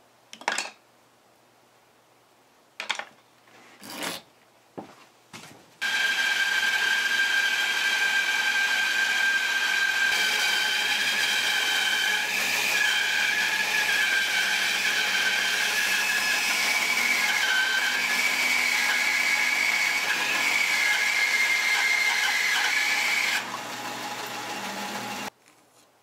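Band saw running and cutting through a thick block of wood, a steady whine whose pitch shifts a little as the blade works through the cut. Near the end it drops to a lighter run and then stops. A few short knocks come before the saw starts.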